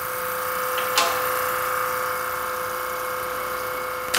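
Large frame-mounted Kränzle electric pressure washer running steadily, its motor and pump making an even hum with a constant tone. A single sharp click comes about a second in.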